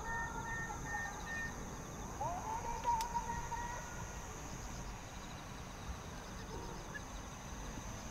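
Crickets and other insects chirring steadily in the night, with distant spectators letting out drawn-out cries twice and a single sharp crack about three seconds in.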